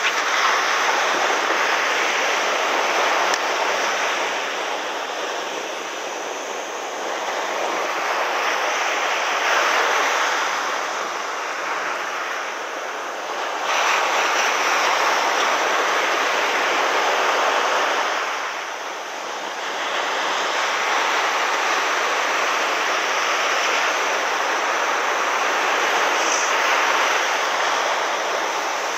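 Ocean surf breaking and washing up a sandy beach, a steady rush of foam that swells and eases every few seconds.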